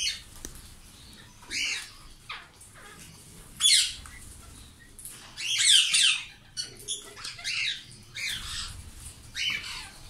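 Indian ringneck parakeets squawking: a string of about ten loud, high-pitched calls, some short and some coming in quick runs, the loudest and longest about four and six seconds in.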